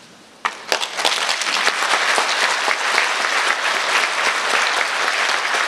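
Audience applauding: a few scattered claps about half a second in, swelling within a second into steady full applause.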